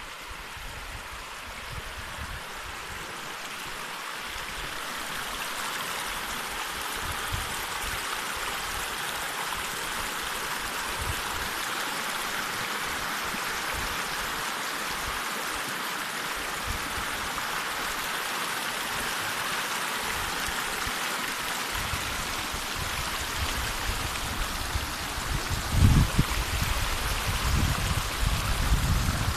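Shallow mountain river rushing over rounded stones, a steady water rush that builds over the first few seconds and then holds. Near the end, irregular low rumbles on the microphone come over it.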